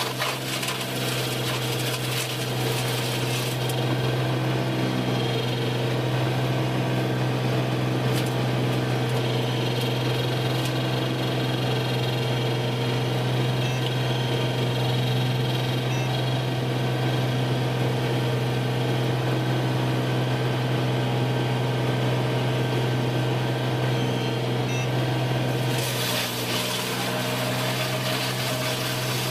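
Wood-processing machinery running with a steady low hum and constant mechanical whine.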